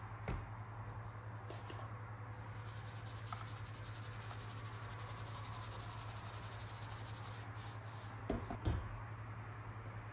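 A steady low hum with faint hiss, and a couple of light knocks near the end.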